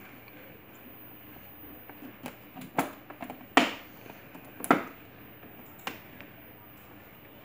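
Hard plastic knocks and clicks as a tinted plastic windscreen is pressed into place on a ride-on toy car's plastic body: a scattering of sharp taps, the two loudest about a second apart midway through.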